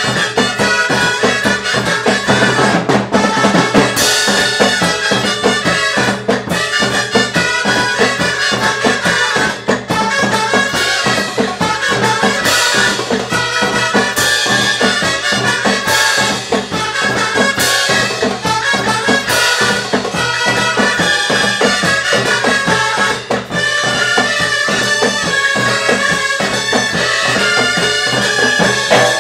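A harmonica ensemble playing a mambo, with a drum kit keeping a steady beat.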